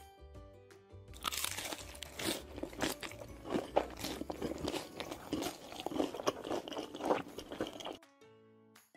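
Crisp crunching and chewing of a deep-fried, breadcrumb-coated spring roll, many irregular crunches starting about a second in and stopping shortly before the end. Light background music plays under it.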